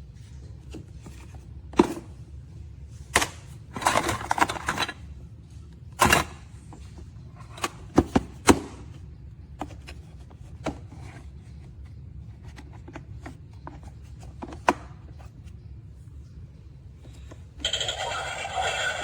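Plastic toy play kitchen parts being handled: scattered clicks and knocks. Near the end the play kitchen's electronic sound effect starts, a steady buzzing pattern of tones.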